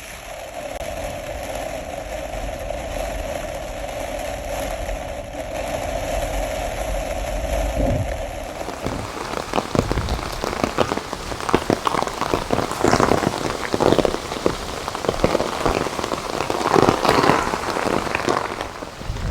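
Torrential rain beating down. It is an even steady noise for the first half, then from about halfway it turns louder and uneven, with many sharp close patters of heavy drops.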